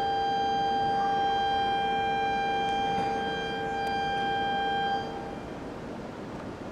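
Shinkansen platform departure bell ringing as one steady, unbroken electronic tone, signalling that the train is about to depart; it cuts off about five seconds in.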